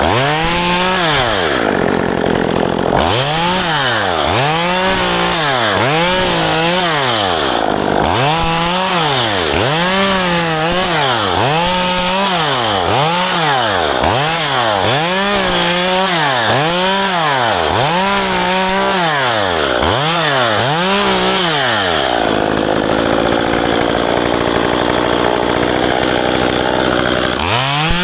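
Small two-stroke chainsaw engine revving up and dropping back in quick pulses, about one a second, as it cuts back ficus branches. About 22 seconds in it holds at full speed for several seconds, then drops and revs up again near the end.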